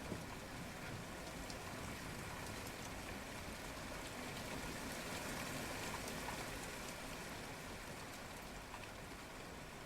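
Steady rainfall at night, an even hiss of rain with scattered drops ticking on surfaces, swelling a little midway and easing slightly toward the end.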